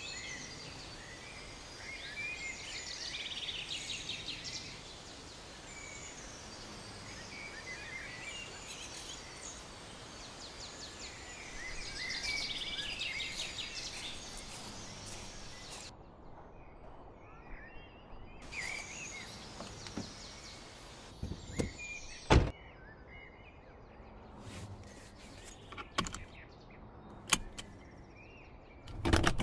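Birds singing over steady outdoor ambience. About two-thirds in, a car door is opened and shut with a sharp thump, followed by a few lighter clicks. Right at the end the car's engine starts.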